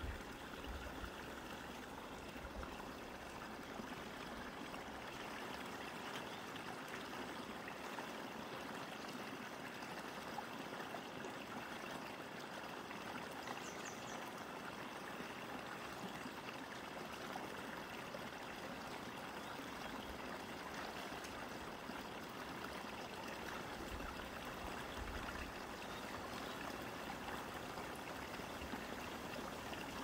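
Shallow mountain stream running over rocks: a steady, gentle rush of water.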